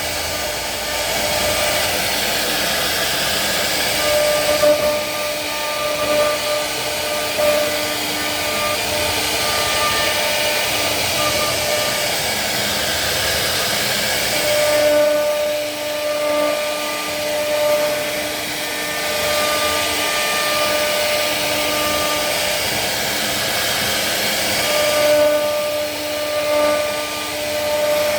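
CNC wood router's spindle running at a steady, high whine over a rushing hiss as it carves wood, the sound of the cut changing about every ten seconds.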